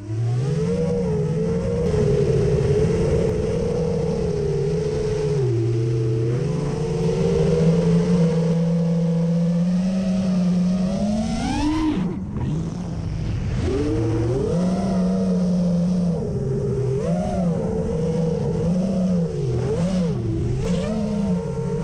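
FPV quadcopter's brushless motors and propellers whining, the pitch gliding up and down with the throttle: a sharp climb about eleven seconds in, a sudden drop, then quick rises and falls near the end.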